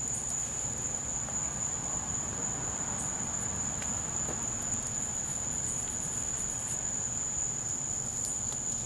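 A steady, high-pitched, unbroken trill of night-singing crickets, with a few faint ticks.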